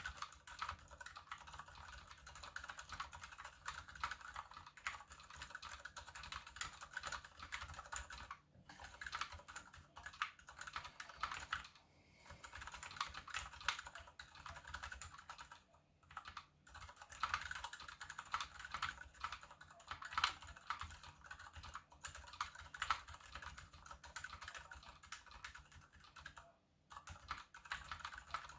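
Typing on a KBD75 mechanical keyboard with unlubed Gateron Silent Brown switches, a brass plate and PBT DSA keycaps: steady runs of rapid key presses, broken by brief pauses a few times.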